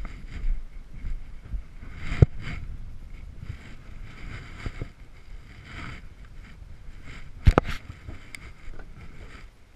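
Tools knocking during a roadside tire change: a sharp clank about two seconds in and a quick double clank near the end, over wind rumbling on the microphone.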